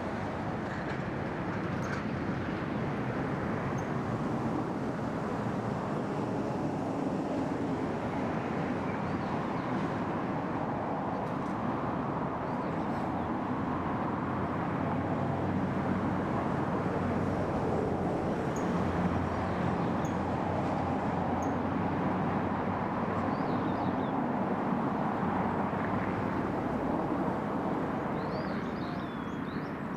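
Steady outdoor background rumble, such as distant traffic or flowing water, with a few faint, short, high bird calls scattered through, more of them in the second half.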